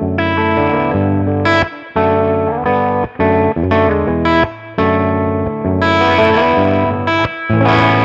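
Electric guitar, a Josh Williams Mockingbird 335-style guitar with ReWind Electric TAF-style humbuckers, played through an overdriven tone: a run of chords and single notes with short breaks between them. A chord struck near the end is left ringing.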